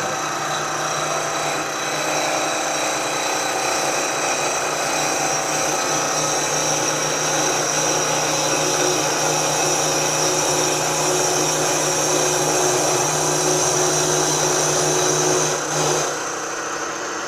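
Milling machine running with its cutter taking a cut across a cast iron casting: a steady motor hum under a continuous cutting hiss with a high whine, until a short break near the end.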